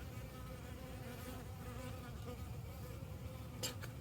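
Honey bees buzzing in flight close by, a faint steady hum, drawn by the smell of honey being drained from the hive. A couple of faint clicks near the end.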